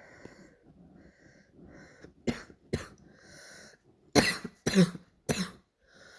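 A girl's barking cough. After a couple of seconds of faint breathing come two short coughs, then a drawn-in breath, then a burst of three louder coughs about four seconds in.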